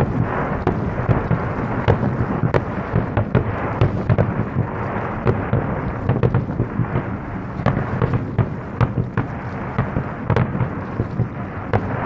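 Aerial firework shells from an Isogai Enka display bursting in rapid barrage: a continuous low rumble of booms, broken by many sharp cracks several times a second.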